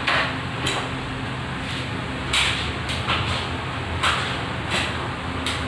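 Handling noise: several short scrapes and knocks from a metal stepladder being climbed and a light tube being handled, over a steady low hum.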